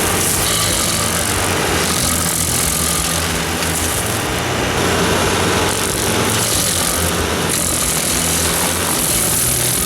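Rayco RG100 stump grinder running at high revs, its 100 hp turbocharged Kubota diesel engine droning steadily. Over it the toothed cutter wheel grinds into a stump, with a hiss that swells and fades every second or two as the wheel sweeps.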